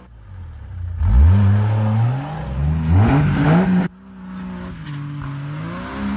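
Off-road 4x4 engine revved hard under load in the mud, its pitch climbing steeply twice. After an abrupt cut, a Jeep Wrangler's engine runs at moderate revs, its pitch rising and falling gently.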